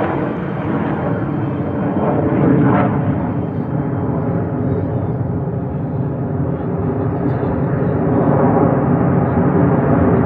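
Aircraft engine noise from a plane flying overhead: a loud, steady sound that grows louder over the last few seconds.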